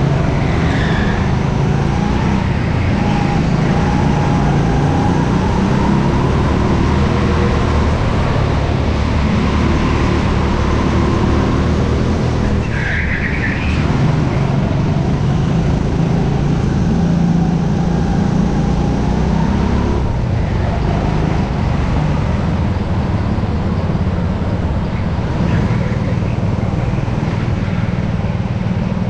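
Go-kart engine heard on board the kart, its pitch rising and falling as the kart speeds up and slows through the corners, over a steady rush of wind and track noise. A short high squeal comes a little before halfway.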